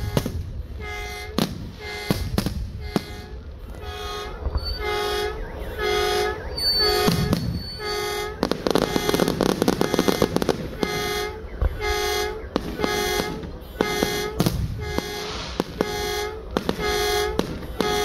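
Vehicle air horn honking over and over in a steady rhythm, about one and a half blasts a second. Fireworks crackle and burst loudest about nine to ten seconds in.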